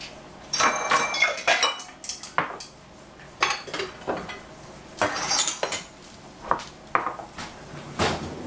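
Kitchenware clattering on a tiled countertop: a ceramic bowl and a kitchen knife being picked up and set down. Several clusters of clinks and knocks, the first ones ringing briefly.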